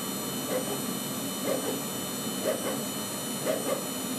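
Spindle of a home-built CNC milling machine running at 8000 rpm with a Holex ProSteel 4.2 mm drill cutting into C45 steel: a steady high whine over a noisy hiss, with a short pulse in the sound about once a second.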